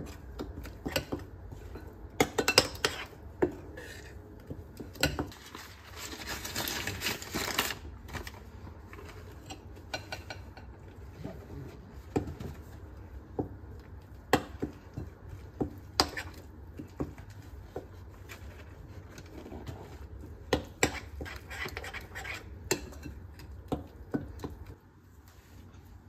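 Metal spoon stirring thick corn batter in a ceramic bowl, clinking and scraping against the bowl's sides at irregular moments. A couple of seconds of rustling hiss come about six seconds in.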